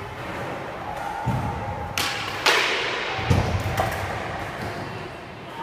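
Skateboard on a plywood ramp: low wheel rumble and several thuds and clacks of the board, the loudest a sharp clack about two and a half seconds in.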